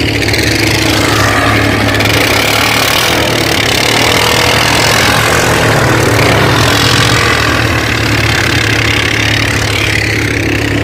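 Off-road vehicle engine running steadily under a thick rush of noise, at an even level throughout.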